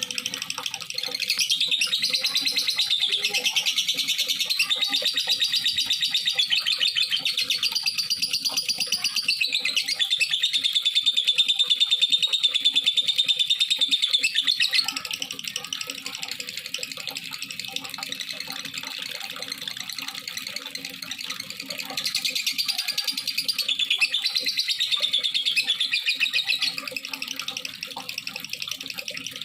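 Lovebird singing in long, very fast chattering trills: one run of about fourteen seconds, then quieter chatter, then a second run of about five seconds. This is the 'gacor' lovebird song used as a lure to set other lovebirds singing.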